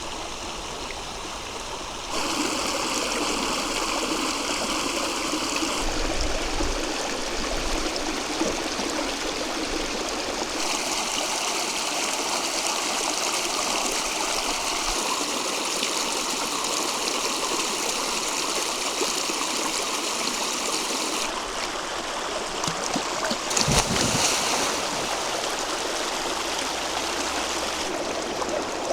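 Flowing river water, a steady rushing with no clear rhythm. Its level and tone change abruptly several times, and a single low thump comes about 24 seconds in.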